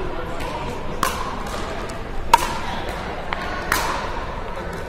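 Pickleball paddles striking a hard plastic ball: several sharp pops with a short ringing tail that echoes in a large hall, the loudest about two seconds in.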